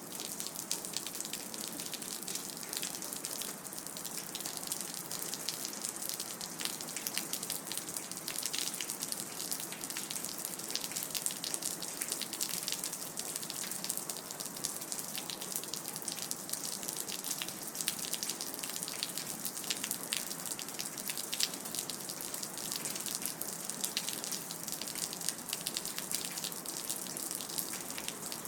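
Rain dripping: a dense, steady patter of many small drops and drips over a constant wash of water noise.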